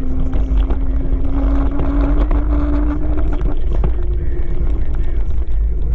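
Wind buffeting the microphone on a moving Kaabo Wolf King GT electric scooter. Its hub motor whines, rising slowly in pitch as the scooter gathers speed, then fades about three and a half seconds in.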